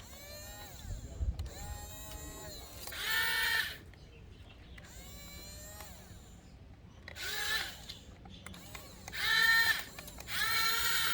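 Electric gear motors of a Yigong YG 258C remote-control toy excavator whining in several separate runs, each spinning up in pitch as it starts and then holding steady; the last runs are the loudest.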